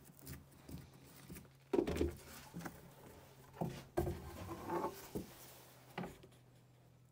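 Clunks and knocks of tools and timber being handled on a workbench as a cordless drill is set down and a plywood template and wooden bearer are moved, with some rubbing of wood on wood. The loudest clunk comes about two seconds in, over a low steady hum.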